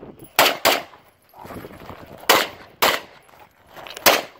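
Semi-automatic pistol fired five times: two quick pairs, then a single shot near the end.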